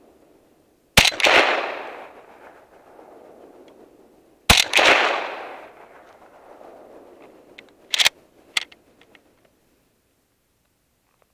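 Two rifle shots from a Gewehr 43, a semi-automatic 7.92×57mm Mauser rifle, fired about three and a half seconds apart. Each sharp report rolls away in an echo over a second or two. About eight seconds in come two shorter, sharp knocks without the echo.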